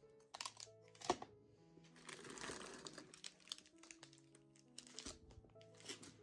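Soft background music over plastic packaging crinkling and things being knocked and set down while handled, with a sharp knock about a second in and a longer stretch of crinkling about two seconds in.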